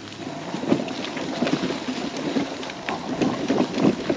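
Uneven rumbling and crackling as a scooter rolls over rough, pine-needle-covered ground, with wind buffeting the microphone and scattered sharp clicks.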